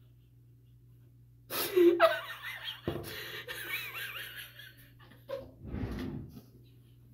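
A woman laughing hard, breaking out loudly about a second and a half in and going on in gasping, breathy bursts.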